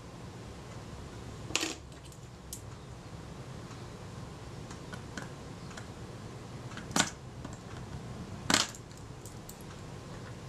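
Small metal tools clicking against the metal parts of a Kodak Retina IIIc camera while tiny screws are being fitted: three sharp clicks, about one and a half, seven and eight and a half seconds in, with a few fainter ticks between, over a steady low hum.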